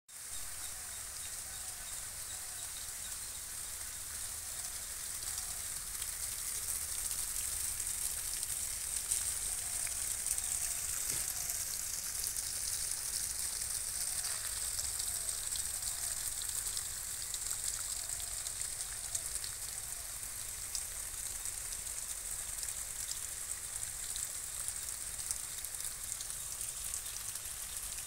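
Steady high-pitched insect chorus, an even shrill hiss with fine crackle, over a low rumble.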